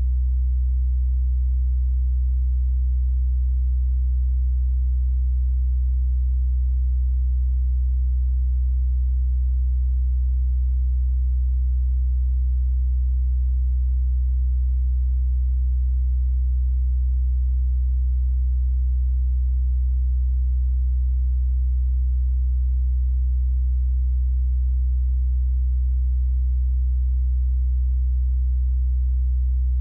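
A steady low hum, with no other sound: one deep tone with a weaker overtone above it, unchanging throughout.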